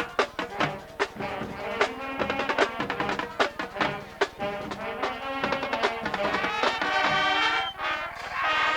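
High school marching band playing live: brass instruments holding notes over a steady run of drum strokes.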